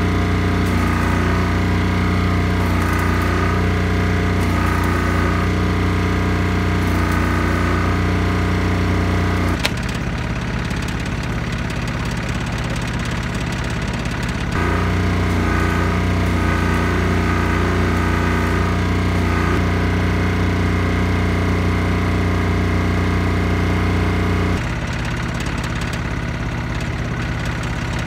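Stick welding on a kei truck's broken steel frame: a welding machine runs with a steady hum, heavier in two stretches of about ten seconds each and dropping to a lighter hum in between and near the end.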